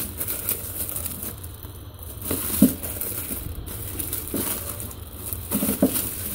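Clear plastic bags around hardcover comic books crinkling and rustling as the bagged volumes are flipped through and shifted on a shelf.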